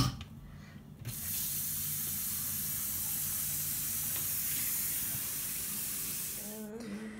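Kitchen tap running into the sink: a steady rush of water that starts suddenly about a second in and stops near the end.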